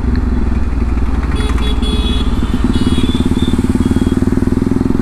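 Bajaj Pulsar NS200's single-cylinder engine running steadily at low road speed through an aftermarket Akrapovic-replica full exhaust, with an even pulsing exhaust note.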